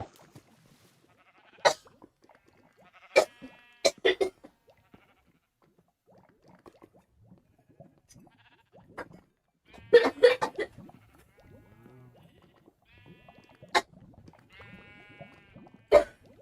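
A girl coughing in separate bouts: single sharp coughs near 2 s and 14 s, a few quick coughs around 3 to 4 s, and a harder cluster at about 10 s. Between the coughs come short pitched vocal sounds from her throat.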